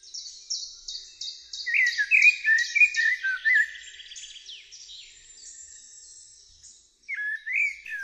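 Male Eurasian blackbird singing: mellow fluted warbling phrases, about two seconds in and again near the end, over a fast run of thin high notes that fades away.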